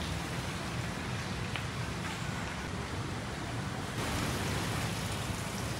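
Steady street ambience: an even hiss over a low traffic rumble, with no clear single event.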